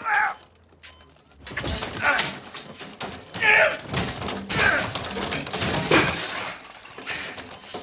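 A man straining against wrist restraints on a hospital bed, letting out about five strained grunts and cries. The bed frame and rails clatter steadily under his struggling.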